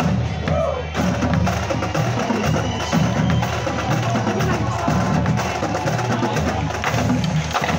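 Marching drumline playing a cadence: snare drums with tenor and bass drums in a fast, dense, steady rhythm.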